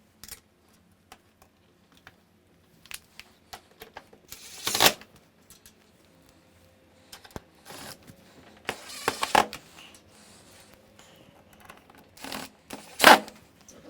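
Screwdriver and hands working on a dishwasher's plastic fascia as its screws are driven back in: scattered light clicks and scrapes, with three louder short rasping scrapes about five, nine and thirteen seconds in.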